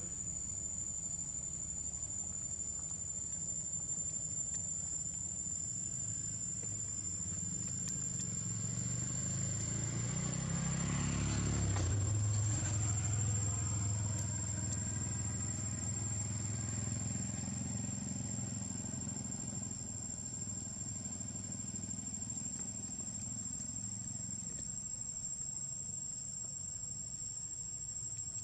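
Steady high-pitched insect drone throughout, with a motor vehicle engine passing by, growing louder to a peak about halfway through and then fading away.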